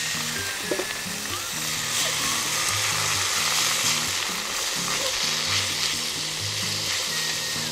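Minced meat sizzling as it fries in hot garlic oil in an iron wok, stirred with long chopsticks: a steady frying hiss.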